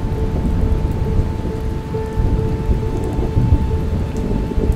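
Library thunderstorm sound effect: continuous low rolling thunder over steady rain, under a quiet music track that holds a sustained note.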